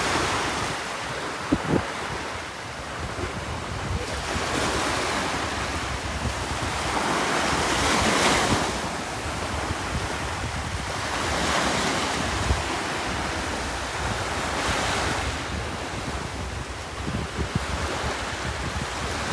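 Surf breaking on a sandy beach, each wave washing in and swelling every few seconds, with wind buffeting the microphone. There are a couple of brief knocks.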